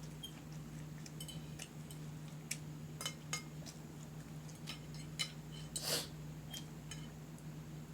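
Cutlery clinking and tapping against a plate in scattered light clicks, with one louder, longer scrape about six seconds in, over a low steady hum.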